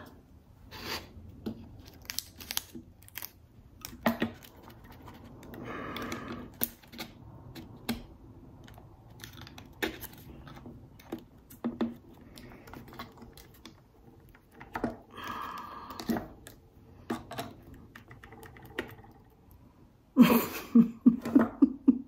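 Scattered light clicks and taps of small steel Swiss Army knife parts being handled and fitted onto brass rods by hand.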